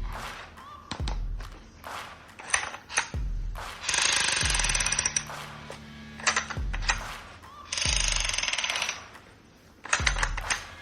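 Toy gun rapid automatic-fire sound in two bursts of about a second each, with single sharp clicks and deep thuds between them, over a low music bed.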